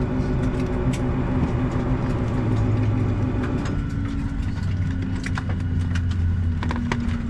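Steady low hum inside the cabin of a parked Boeing 757-300. About four seconds in, the higher hiss fades and the hum changes tone. Several sharp clicks and knocks follow near the end.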